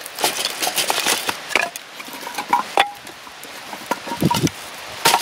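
Split firewood sticks knocking and clacking against each other as they are handled and set down: a run of sharp, irregular wooden knocks.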